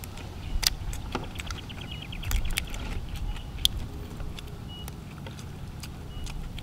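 Shells of steamed giant freshwater prawns cracking and snapping as they are peeled and pulled apart by hand: scattered sharp clicks and snaps, with a brief fast run of ticks about one and a half seconds in, over a steady low rumble.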